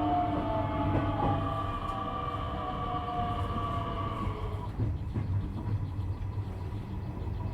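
Inside a Nishitetsu 3000 series electric train's motor car on the move: the traction motors and inverter whine in several steady tones over the low rumble of wheels on rail. The whine fades out about halfway through, leaving only the rolling rumble.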